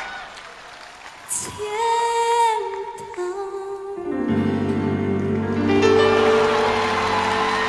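A female singer holds a note with vibrato over soft accompaniment, then the backing swells into a long sustained chord about four seconds in, as the song ends.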